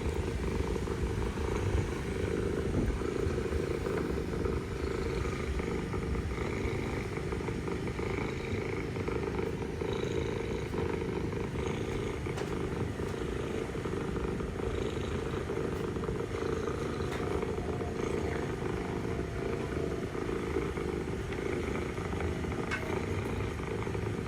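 Mother cat purring steadily and continuously, close to the microphone.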